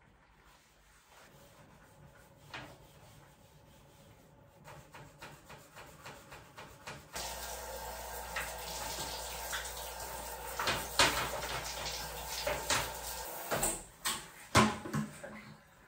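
Water from a handheld shower hose spraying into a toilet bowl to rinse it, a steady hiss that starts about seven seconds in and stops about six seconds later. Light scattered knocks come before it, and several sharp knocks come during and after it.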